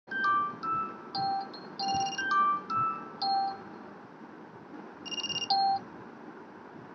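Smartphone alarm ringing: a melody of short, chime-like notes, a pause, then a quick trill and one last note, stopping about six seconds in as the alarm is dismissed. A low steady hiss remains after.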